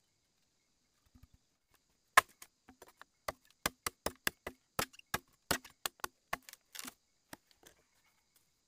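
Machete chopping into a green bamboo pole: a quick run of about twenty sharp knocks, roughly three or four a second, starting about two seconds in and stopping shortly before the end.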